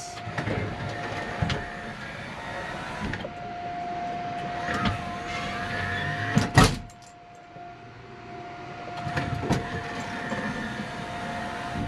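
Factory powered sliding door of a Mazda T3500 bus opening and closing under its switch, with a steady whine while it moves. There is a heavy thump about six and a half seconds in and a lighter knock near ten seconds as the door reaches its stops.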